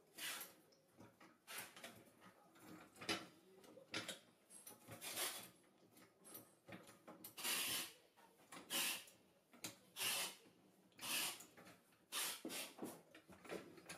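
Red 2-tonne hydraulic trolley jack being handled and worked by its long handle: a series of short scraping, clicking strokes, about one every second, some lasting half a second.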